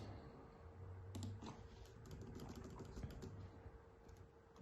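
Faint typing on a computer keyboard: a quick run of key presses.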